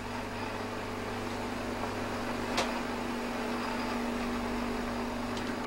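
Steady electric hum of a laboratory freezer running, with a faint click about halfway through and a sharper click at the very end.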